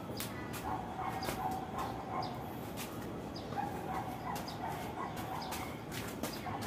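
An animal's repeated short, high calls in two runs, the first starting about a second in and the second a little past the middle, with scattered sharp clicks.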